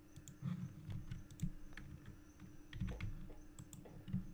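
Scattered, irregular clicks of computer keys and a mouse button, about ten in all, fairly faint.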